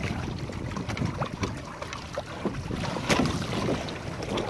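Choppy water splashing and slapping against the hull and outrigger float of a Hobie sailing kayak under way, with wind buffeting the microphone. One sharper splash about three seconds in.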